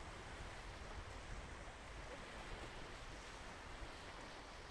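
Steady seaside ambience of surf washing on a sandy beach mixed with wind rumble, with no distinct events standing out.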